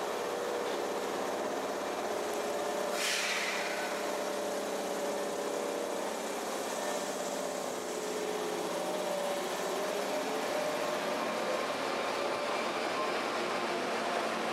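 Osaka Municipal Subway Midosuji Line electric train pulling out along the platform: a steady running sound of the motors, with several held tones and wheel-on-rail noise. About three seconds in, a brief high sound falls sharply in pitch.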